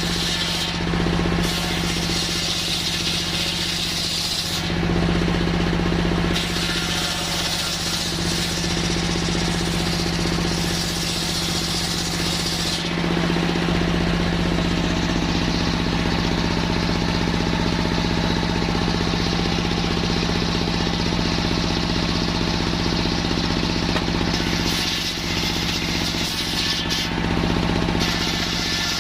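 Engine-driven circular sawmill running steadily while sawing coconut-palm timber. A high hiss over the engine's steady pitch comes and goes during the first half, then mostly falls away.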